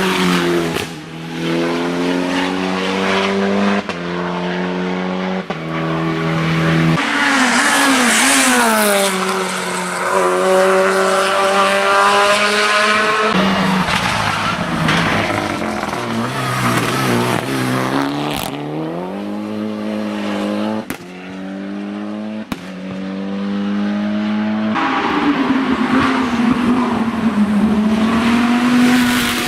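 Race car engine at full throttle on a hill climb, its pitch climbing and then dropping sharply at each upshift, several times in quick succession. Midway it falls away as the car slows, then climbs through the gears again.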